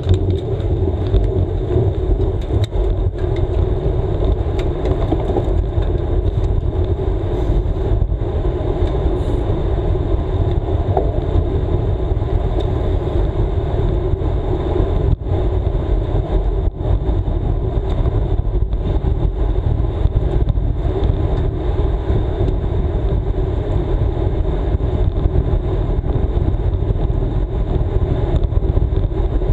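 Steady wind noise buffeting the microphone of a camera on a road bike ridden at race speed, with a continuous hum from the tyres on asphalt.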